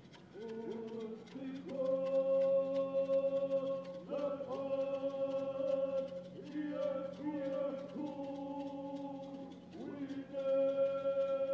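A group of voices sings a Native ceremonial song in long held notes, phrase after phrase of a few seconds each, starting about a second in, with hand drums beating along.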